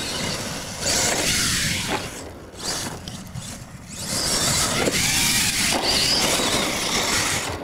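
Radio-controlled monster truck driving on loose dirt: the motor whines and the tyres scrabble. The sound surges about a second in, eases off for a couple of seconds, then comes back strongly about four seconds in.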